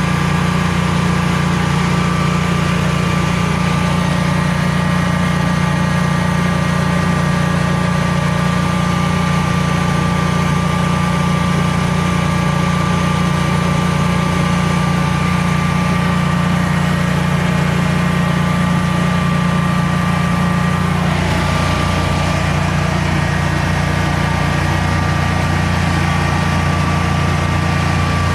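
Generac Guardian 16 kW standby generator engine running steadily during a load test, with a slight change in its tone about three quarters of the way through.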